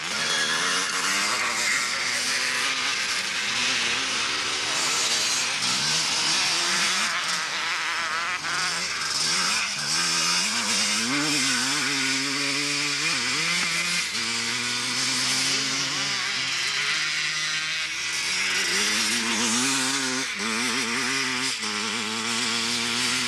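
Motocross motorcycle engines revving hard, their pitch rising and falling again and again as the bikes accelerate and shift.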